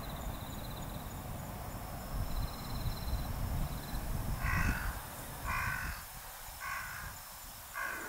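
A crow cawing four times, about a second apart, starting a little past the middle, over a steady low rush of noise. A faint high pulsed trill comes and goes in the first half.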